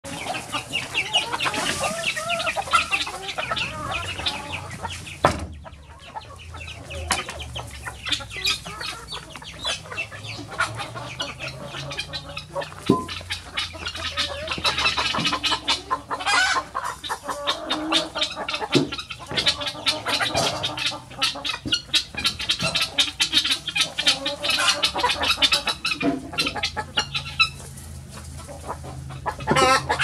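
A flock of brown laying hens clucking, with many short sharp clicks and taps through it. The sound drops out briefly about five seconds in.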